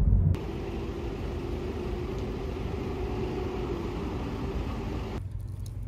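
Steady road-traffic noise with a faint engine hum. It begins abruptly a third of a second in, cutting off a brief low rumble of a car's interior on the road, and changes again abruptly near the end.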